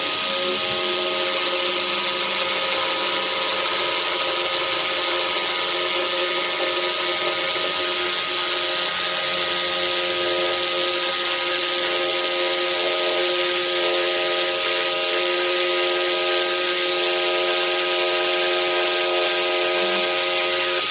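Pumpkin J-J1110 200 W jigsaw cutting through 62 mm thick pine at top speed on cutting-action setting 0, a steady motor whine and blade rasp, with the dust extractor on its dust port running along. On setting 0 the cut goes slowly through the thick board.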